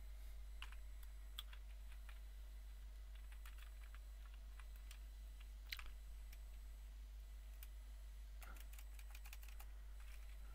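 Computer keyboard typing: scattered light keystrokes with a few short flurries and one sharper key hit a little past halfway, over a low steady hum.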